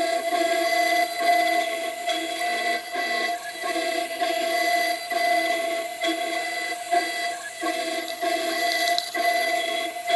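A CNC 6040 router's spindle and small end mill milling aluminium: a steady high-pitched whine with the cut dipping in and out every second or so, over the rushing air of a vacuum hose drawing off the chips.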